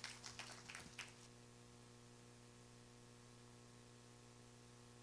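Near silence with a steady, low electrical hum, after a short run of clicks that stops about a second in.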